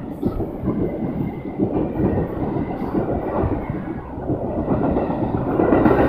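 Metra bilevel passenger cars rushing past close by at speed: a steady loud rumble with wheels clattering over the rails.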